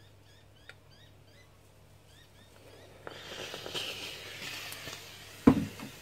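Clothes iron pressed on nylon seat-belt webbing over a towel: a hissing, scuffing noise for about two seconds from halfway in, then a loud thump as the iron is set down on the wooden workbench near the end.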